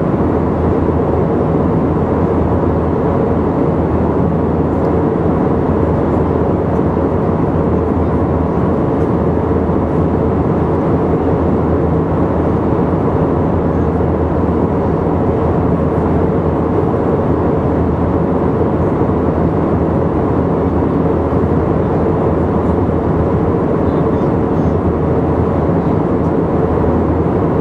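Steady drone of a passenger airliner in flight, heard inside the cabin: unbroken engine and airflow noise with a low hum, level throughout.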